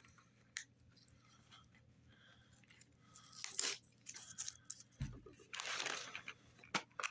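Packaging being handled while a toy car is unwrapped: scattered crinkling and tearing rustles, a dull thump about five seconds in, then a longer crinkle and a few sharp clicks near the end.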